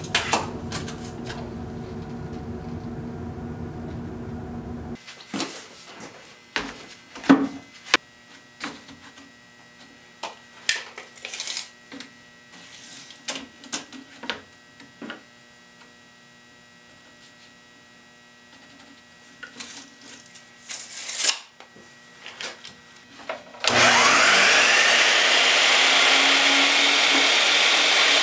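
Bosch sliding miter saw switched on near the end, its motor spinning up with a rising whine and then running steadily as the blade is brought down into a cedar board. Before it, scattered clicks and knocks of the board and tape measure being handled.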